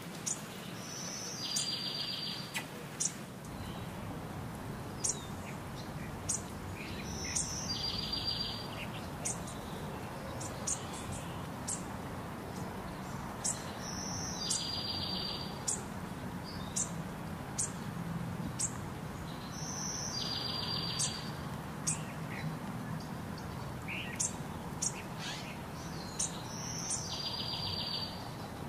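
Bird calls: a short high note followed by a buzzy trill, repeating about every six seconds, with many brief sharp high chirps in between, over a steady low background rumble.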